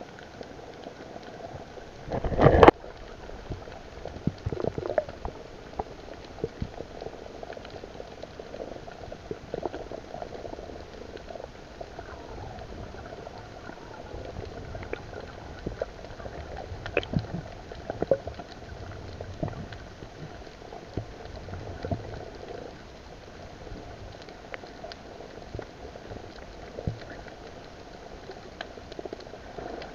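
Underwater sound picked up through a camera's waterproof housing: a muffled, steady bubbling and crackling of water, with one loud burst of noise a little over two seconds in.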